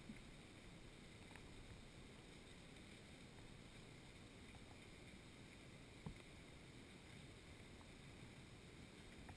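Near silence: faint, steady underwater rumble heard through an underwater camera, with a few faint ticks, the clearest about six seconds in.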